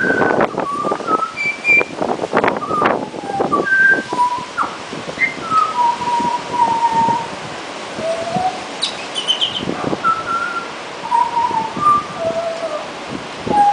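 Pied butcherbird singing: a series of clear, flute-like whistled notes at changing pitches, some brief and some held for about half a second, with short gaps between them.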